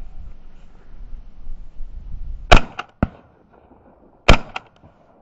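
Two shotgun shots about two seconds apart, the first about two and a half seconds in, each a sharp crack followed by a couple of fainter knocks.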